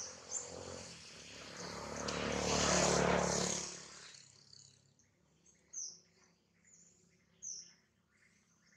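A broad rush of noise swells and fades over about three seconds in the first half, the loudest thing here. Short high bird chirps then recur every second or two over quiet outdoor ambience.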